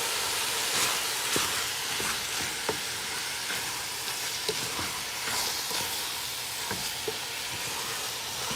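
Beef tongue, lemongrass paste and curry leaves sizzling in hot oil as they are stirred, with a utensil clicking against the pot every second or so.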